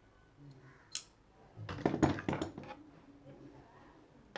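Small tools and parts handled on a workbench: a sharp click about a second in, then a loud burst of light metallic clattering and knocking for about a second, and another click at the end.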